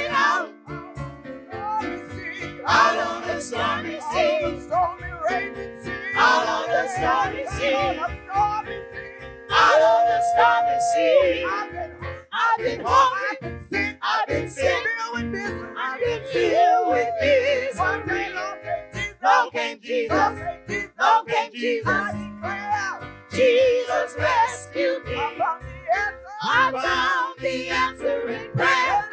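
Gospel praise team singing into microphones over instrumental accompaniment with a steady beat, voices rising and falling in sung phrases throughout.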